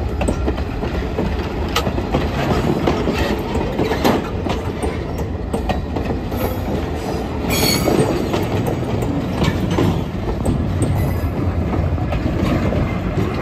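Railroad passenger cars rolling slowly past at close range: a steady rumble of steel wheels on rail with scattered clicks and clacks over the joints, and a brief wheel squeal about seven and a half seconds in.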